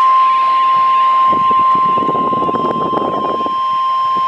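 NOAA Weather Radio warning alarm tone: a single loud, steady beep near 1050 Hz that is held unbroken, marking that a warning broadcast is about to follow. A rough crackling radio noise runs beneath it from about a second and a half to three and a half seconds in.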